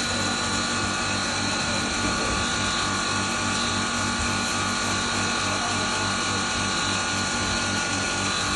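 Electric double-chamber maize grinder running steadily: a steady high-pitched whine over a low, pulsing hum.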